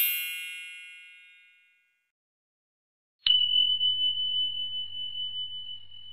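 Sound effects for a subscribe-button animation. A bright, shimmering chime fades out over the first second and a half. About three seconds in, a single high bell ding is struck for the bell-icon click and rings on, slowly fading.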